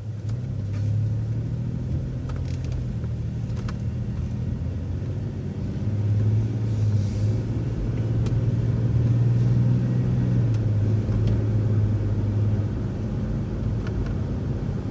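City transit bus engine running with a steady low drone as the bus turns and drives on. The drone swells from about six seconds in and eases a little near the end.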